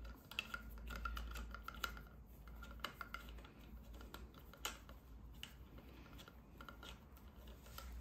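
Hex key turning the bolt on top of a bicycle handlebar stem: faint, irregular small metal clicks and scrapes as the bolt is worked in, with one sharper click about halfway through.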